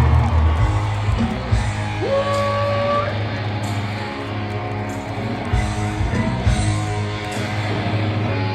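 Live rock band playing, led by electric guitar over a heavy low end. About two seconds in, a note slides up and is held for about a second.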